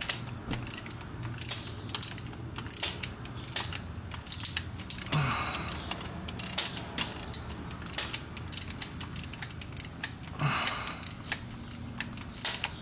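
Hand ratchet wrench worked in quick strokes, a run of sharp metallic clicks in short clusters, as bolts are tightened in a torque sequence and in stages.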